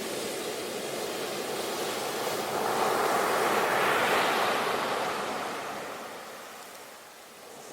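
Sea waves breaking on a shore: one wave swells up to a peak about four seconds in, then washes back and fades before the next one comes in.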